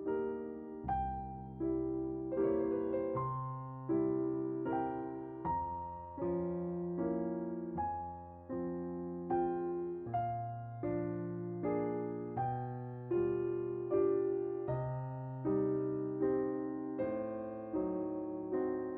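Background music: an electric piano playing a slow sequence of chords, each struck and left to fade before the next.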